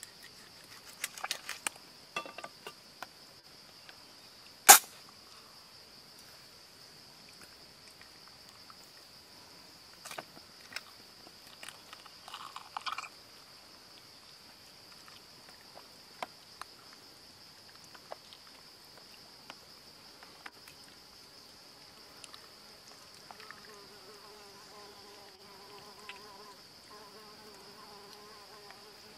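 A steady high insect chorus, with scattered clicks and wet handling noises as hands and a knife pull the guts out of a large fish's belly. One sharp loud click comes about five seconds in.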